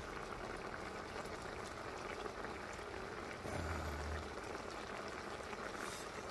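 Spicy braising sauce of mackerel and radish bubbling at a hard simmer in a wide pan, a steady fine crackle of boiling.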